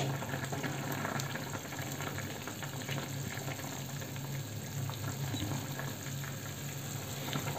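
Thick radish curry simmering in an iron kadhai on a gas burner, a steady bubbling and light crackling, with a steady low hum underneath.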